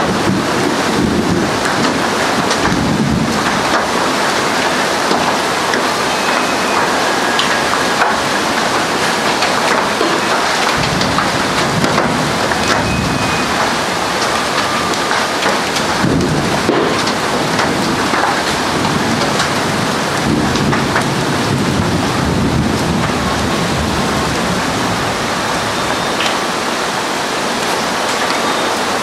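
Hailstorm: hailstones and heavy rain pelting down in a loud, steady hiss made of countless small impacts.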